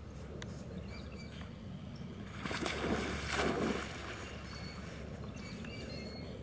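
A dog splashing into a pond: a burst of splashing for about a second, starting about two and a half seconds in, then the lighter sound of it swimming.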